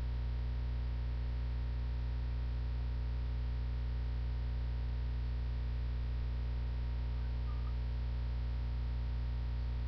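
Steady low electrical hum with evenly spaced overtones that holds unchanged throughout: mains hum picked up in the recording.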